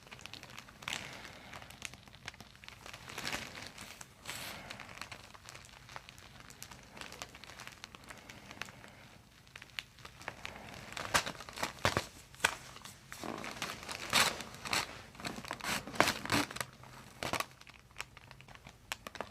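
Crinkling and rustling as a patient lying on a chiropractic table is shifted and positioned, in irregular bursts of short crackles that grow louder and busier about eleven seconds in.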